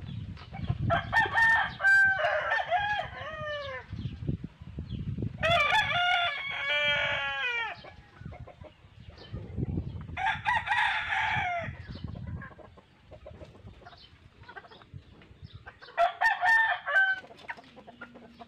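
Rooster crowing four times, a few seconds apart, each crow a long call that bends down in pitch at the end. Softer scratching and rustling runs underneath during the first twelve seconds or so.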